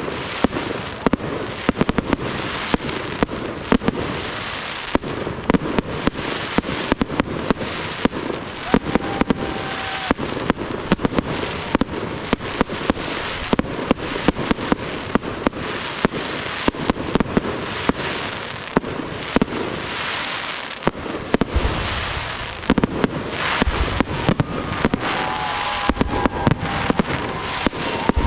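Aerial fireworks display: a rapid, continuous stream of shell bursts and crackling stars, with deeper booms coming in during the last several seconds.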